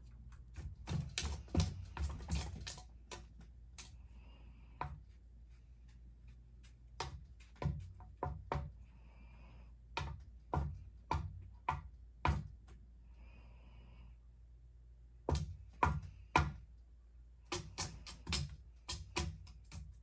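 A cat's paw striking the blades of a spinning ceiling fan as it swats at them. Sharp, irregular taps come in quick clusters, over the steady low hum of the fan.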